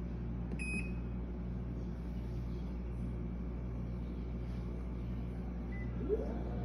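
Teco top-loading washing machine running its automatic load-sensing zero calibration: a steady low motor hum that pulses gently as the drum is turned. A short electronic beep from the control panel sounds just under a second in.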